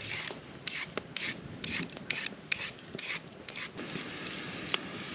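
A raw carrot being peeled in quick rasping scrapes, about three strokes a second, which stop after about three and a half seconds. Then a campfire hisses and crackles, with one sharp pop near the end.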